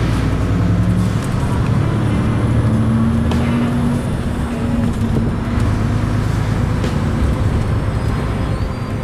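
A lorry's diesel engine running steadily while driving at town speed, with road and tyre noise, heard from inside the cab.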